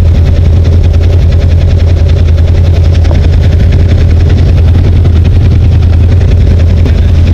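Side-by-side UTV engine running steadily at speed, a loud continuous low drone with a fast even pulse.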